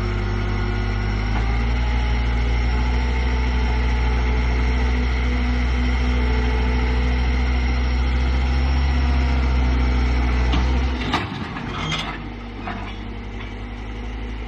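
Heavy vehicle engine running steadily with a low drone; about eleven seconds in it drops quieter, with a few sharp knocks.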